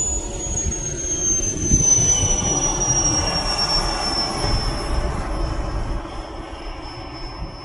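Radio-controlled model jet's engine whining high and falling steadily in pitch as it throttles back on landing, over a low rumble.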